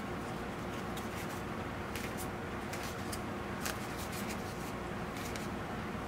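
Fingers squeezing and rubbing a cut block of high-density foam, giving several short, irregular rustles and squeaks over a steady background hiss and faint hum.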